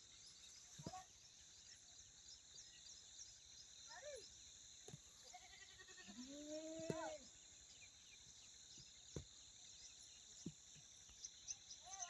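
Faint goat bleats: a short falling call about four seconds in, and a longer one from about six to seven seconds. Under them is a steady high hiss, with a few soft knocks.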